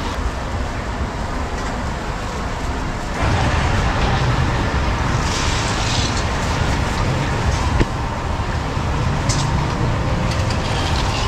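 Gas wok burner running under a wok of bubbling hot syrup: a steady roar with sizzling, louder from about three seconds in. Around five to six seconds in comes a hissing rush as a panful of peanuts is tipped into the hot wok. A few sharp knocks follow as the metal ladle stirs.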